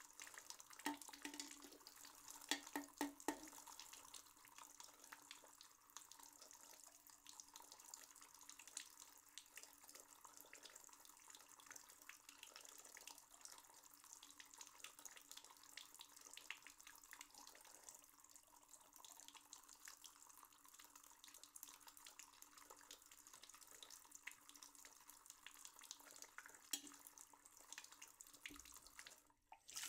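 Faint water running from a tap into a sink, with small splashes and drips, a little louder in the first few seconds; it drops out briefly just before the end.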